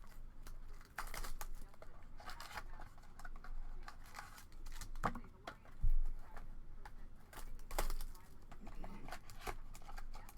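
Trading-card pack wrappers being torn open and crinkled while cards are handled: a string of irregular rustles, tears and sharp clicks.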